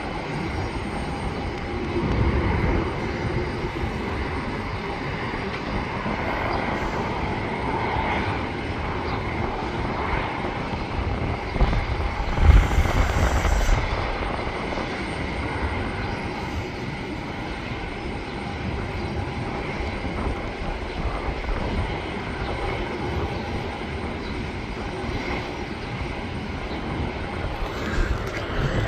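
Jet airliner engines heard at a distance: a steady rumbling hum with a faint whine. About twelve seconds in, gusts buffet the microphone for a couple of seconds.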